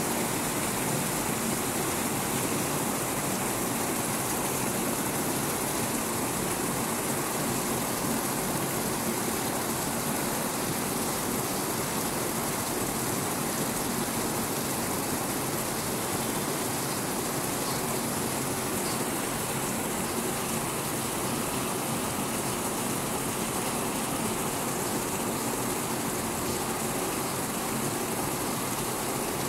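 Heavy rain falling steadily, with runoff pouring off the roof edges and splashing below.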